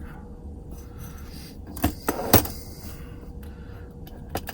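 Small metal clicks from the pins, springs and tools of a Yale padlock being taken apart, with a sharp clatter about two seconds in and another click near the end.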